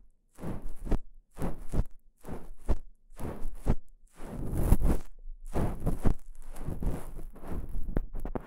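Ear pick scraping and rubbing inside the ear of a KU100 dummy-head microphone, heard very close. It comes in irregular strokes about one or two a second, which crowd closer together in the second half.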